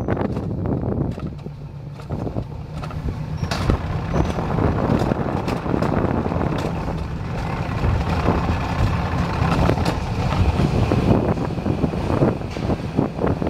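Alpine coaster sled running along its tubular steel rails: a steady low rumble from the wheels on the track, with scattered rattles and clicks throughout.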